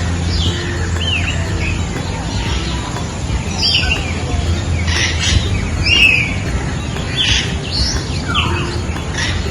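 Birds calling with repeated short, arching chirps, one or two a second, over a steady low hum.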